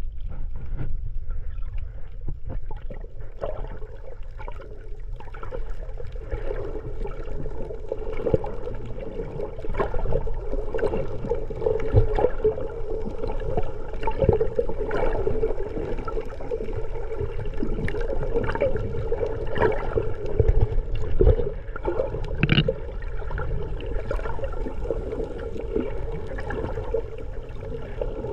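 Water sloshing and bubbling against the camera, heard underwater, with many small irregular pops and a steady hum throughout.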